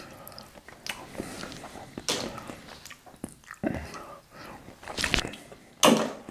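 Close-miked eating sounds: a man chewing soft food with wet mouth smacks and clicks, and several sharper smacks near the middle and end.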